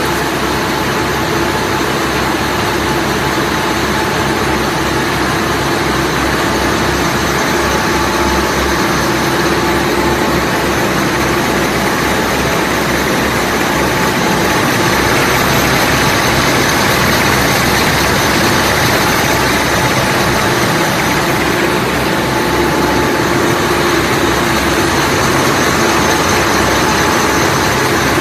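Three-ply plastic baler twine twisting machine running steadily: a loud, even mechanical hum with a few constant tones over it.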